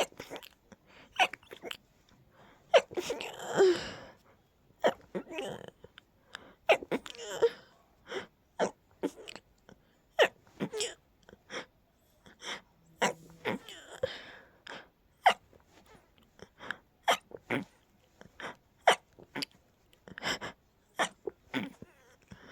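A long run of stifled, held-back sneezes in a sneezing fit: short, sharp bursts one after another, roughly one or two a second, with a few longer, breathier sounds between them.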